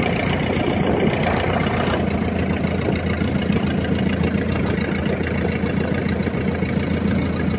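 Fishing boat's engine running steadily under way: a low, even drone.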